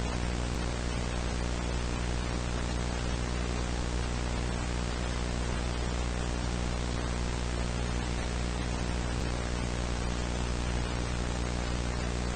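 Steady static hiss with a low electrical hum and buzz underneath, unchanging: the dead-air noise of a mock emergency-alert broadcast between messages.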